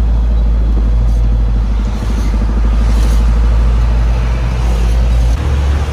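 Sand-hauling truck's diesel engine running with a steady low rumble; its low note shifts about five and a half seconds in.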